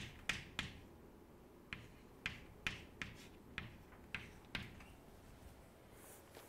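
Chalk writing on a blackboard: about ten quick, sharp taps as the chalk strikes the board, stopping about four and a half seconds in.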